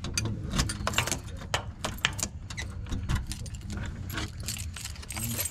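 A ring of keys jangling and clicking as a key is worked in a door lock, an irregular run of sharp clicks.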